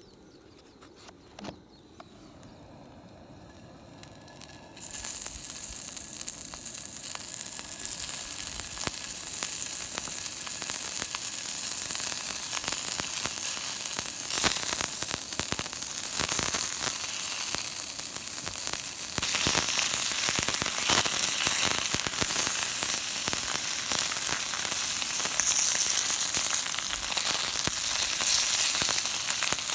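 Food frying in plenty of fat, starting to cook: quiet for about five seconds, then a sudden sizzle that builds and stays loud, with fine crackling pops throughout.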